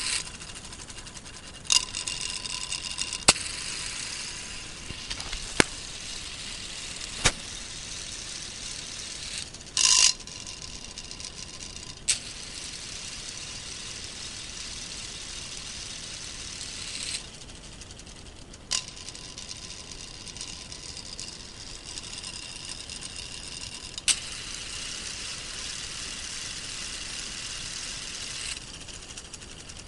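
Small battery-powered electric motor driving a K'nex plastic gear train: a steady whirring whine with sharp clicks every few seconds. The whine drops away for a couple of seconds past the middle, then comes back.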